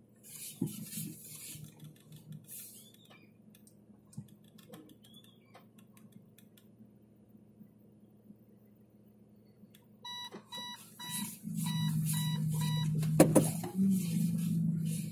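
An electronic vehicle beeper sounds a steady series of short beeps, about two a second, for some three seconds. A louder low, steady drone comes in under the beeps and carries on, with a sharp click partway through.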